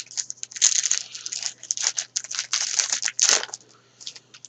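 Crinkling and rustling of a trading-card pack's wrapper as the cards are handled, in quick irregular bursts. The bursts ease after about three and a half seconds into a few light ticks.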